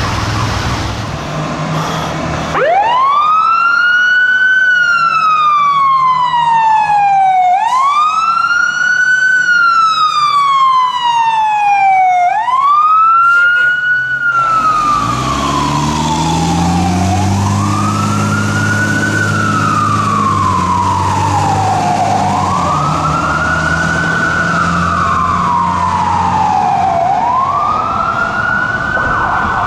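Fire truck siren sounding a slow wail: each cycle rises quickly and falls slowly, about every five seconds. It starts a couple of seconds in, after a short stretch of traffic noise. In the second half the truck's engine rumbles steadily under the siren.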